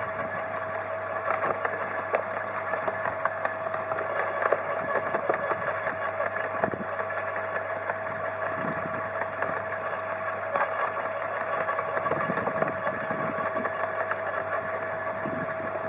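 A motor running steadily with a constant whine, with scattered small clicks and knocks over it.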